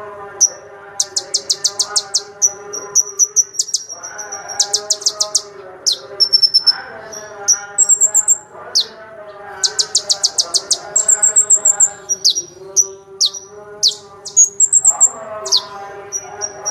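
A kolibri ninja sunbird singing: fast high-pitched trills and sharp chirps, repeated in short bursts throughout. Beneath the song runs a steady lower droning tone.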